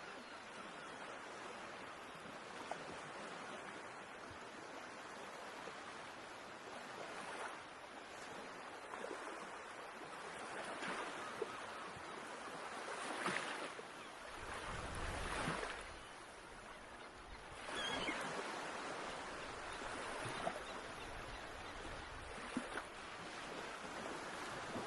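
Ocean surf washing ashore, the waves swelling and falling away every few seconds. A brief low rumble of wind on the microphone comes about two-thirds of the way through.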